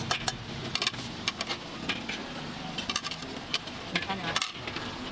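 Kitchen clatter: irregular sharp clinks of metal utensils and dishes, several a second, over a steady low hum.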